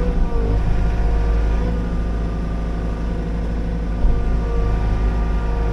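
Liugong 9051F mini excavator's diesel engine running steadily under load, with a whine that wavers up and down from the hydraulics as the machine works. There is a short knock about four seconds in.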